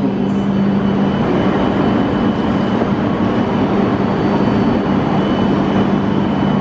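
A stationary E5-series Shinkansen at the platform with its onboard equipment running: a steady low hum with a fainter high whine over a constant rushing noise.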